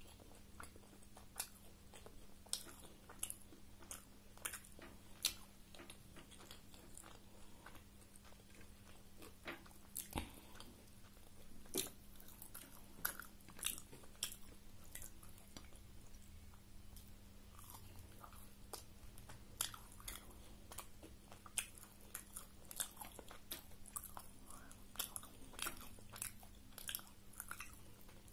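Close-up chewing of a homemade egg roll, with irregular sharp clicks and smacks of the mouth, over a faint steady low hum.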